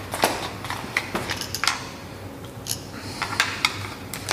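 Irregular small clicks and knocks of a screwdriver working the screws out of a plastic pendant control housing, with the plastic case handled in the hand.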